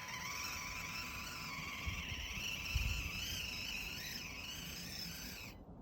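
SCX24 micro RC crawler's small electric motor and gears whining, the pitch rising and falling with the throttle, with wind gusting on the microphone. The whine cuts off shortly before the end.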